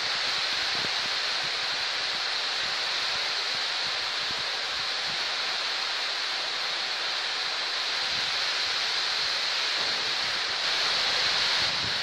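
Heavy rain pouring steadily onto trees and grass, a dense even hiss that swells slightly near the end.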